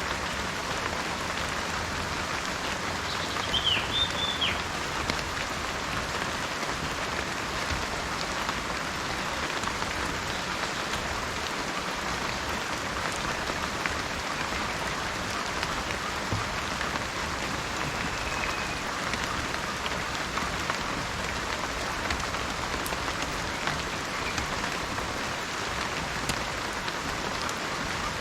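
Steady gentle rain falling, an even patter of many drops with no let-up. A few short high chirps sound briefly about four seconds in.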